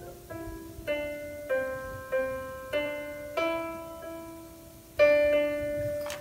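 Piano playing a slow, gentle melody, a new note or chord struck about every half second to second, with a louder chord about five seconds in. A short sharp click comes right at the end.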